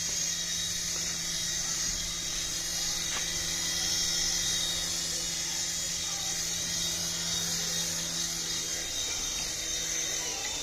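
A battery-powered toy running: a steady whirring hiss over a low hum, which stops near the end.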